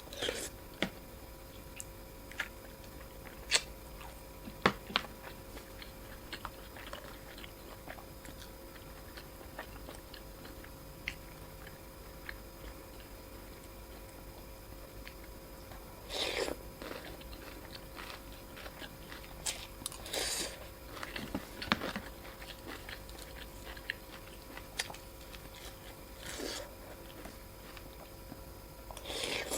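Close-up eating sounds of a person chewing and biting a bowl of Thai boat noodles, with scattered sharp clicks and a few short, louder noisy bursts.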